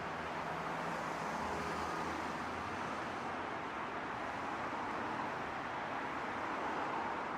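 Steady street traffic noise, with a low engine hum from a passing vehicle in the first two seconds or so.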